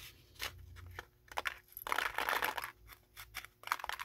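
Small kraft paper envelope rustling and crinkling as it is handled, in irregular bursts with small clicks, loudest about two seconds in.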